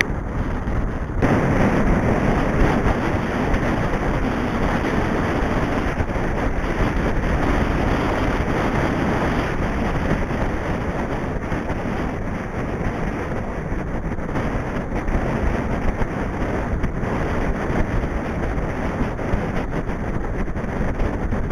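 Wind noise on the microphone of a camera riding on a mountain bike as it rolls along a tarmac lane: a steady rush that gets louder about a second in.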